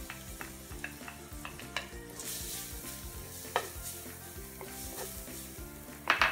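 Minced garlic gently sizzling in oil that is not yet very hot in a nonstick wok, stirred and scraped with a wooden spatula. The spatula clicks against the pan about three and a half seconds in and knocks loudly a few times near the end.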